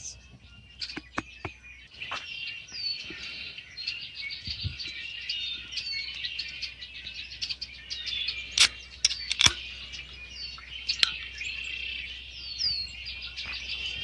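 Small birds chirping and twittering continuously, with a few sharp snaps standing out above them, the loudest about two-thirds of the way through.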